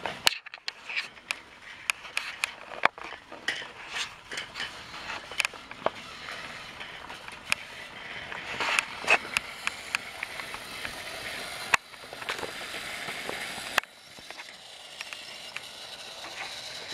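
Irregular plastic clicks and clatter of toy train pieces being handled, then the battery-powered motor of a Thomas TrackMaster toy engine whirring steadily as it runs along the plastic track, easing off near the end.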